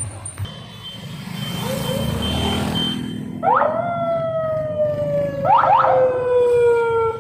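Police siren giving two whoops about two seconds apart. Each sweeps sharply up in pitch, then slides slowly down in a long held tone.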